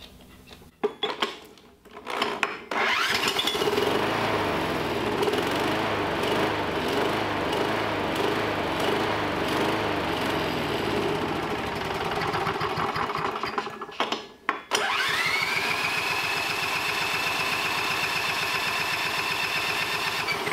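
Electric drill spinning a push lawn mower's small gas engine by its flywheel nut, cranking it over in two long bouts with a short break between. The drill's whine rises at the start of each bout. This is a cold-start attempt on diesel mixed with a dissolved mothball and B12 Chemtool, and the engine does not start.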